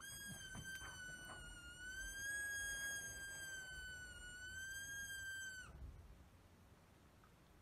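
Yorkshire terrier's long, high-pitched whine that wavers slightly and drops off sharply after about six seconds, with a few light clicks and rustles in the first second.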